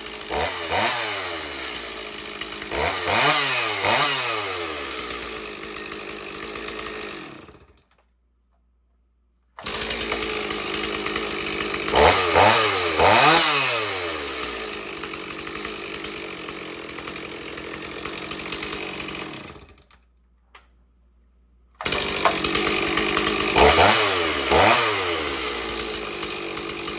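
Stihl 026 two-stroke chainsaw running and revved up twice, then switched off and dying away within about a second. This happens three times over, with the saw running again after a second or two of silence; the kill switch, its contact against the ground wire restored, is shutting the engine off.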